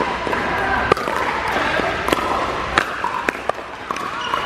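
Pickleball paddles striking a hard plastic pickleball during a rally: several sharp pops, roughly half a second to a second apart, over a steady hall background.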